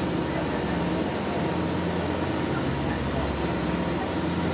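Motorboat engine running steadily under way, a low even drone, with the rushing hiss of the churning wake.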